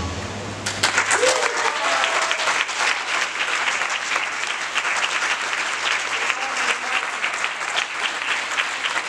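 Audience clapping, breaking out less than a second in and running on steadily, with a few voices calling out near the start.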